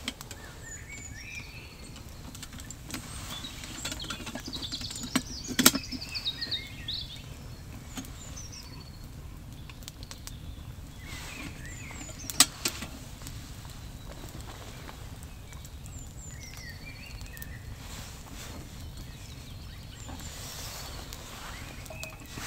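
Outdoor ambience: small birds chirping on and off over a low, steady wind-like noise. A few sharp snaps or knocks stand out, the loudest a few seconds in and again about halfway.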